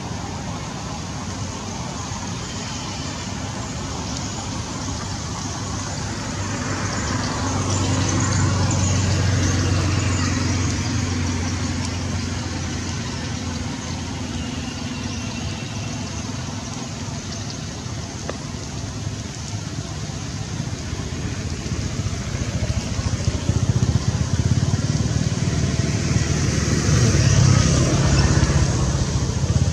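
Motor vehicles passing: a low engine hum over a steady background hiss swells twice, around ten seconds in and again near the end.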